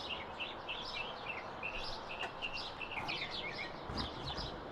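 Small birds chirping: many short, quick chirps repeating throughout, over a faint steady background hiss.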